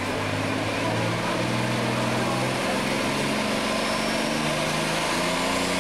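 Super Stock pulling tractor's engine running steadily at a low, idling speed at the starting line, its pitch shifting slightly partway through.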